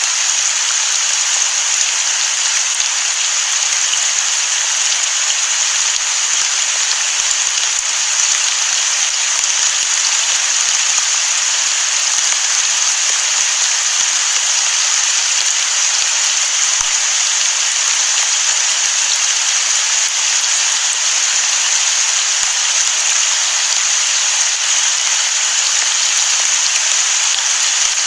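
Rain falling steadily: an even, dense hiss with no thunder.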